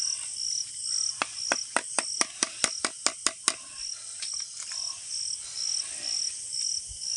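Crickets chirping steadily in an even pulse, about two chirps a second. About a second in, a quick run of about ten sharp knocks, some four a second, lasting a little over two seconds.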